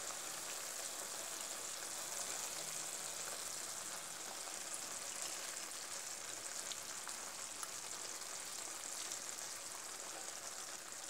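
Chopped radish greens frying in a kadhai in the water they have released, giving a steady, faint sizzle and hiss. A few faint ticks come through in the middle as soaked urad dal is tipped into the pan.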